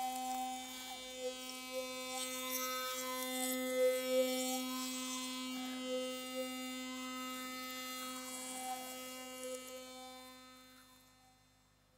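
A steady electric buzz with brief wavers in pitch, fading out near the end.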